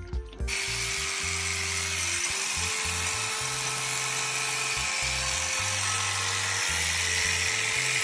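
Electric sheep-shearing handpiece running steadily with a high hiss, starting abruptly about half a second in, with background music over it.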